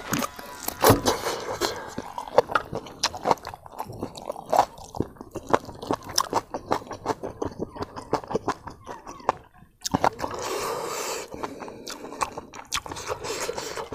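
Close-up eating sounds: wet chewing and biting into boiled pork trotter skin and gristle, a quick run of clicks and crunches. About ten seconds in the chewing stops briefly, and a steady hiss runs for about two seconds before it resumes.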